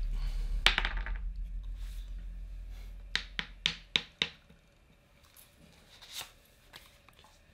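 Game pieces clicking on a wooden board game: a single sharp click, then five quick, evenly spaced taps about three seconds in, and a faint one later. A low hum fades away underneath over the first four seconds.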